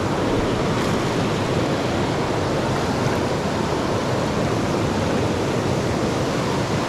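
Fast trout-stream water rushing over rocks in a riffle: a steady, even rush.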